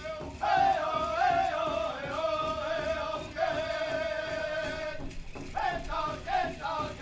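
Powwow singers chanting a song in high voices, with a brief break for breath about five seconds in.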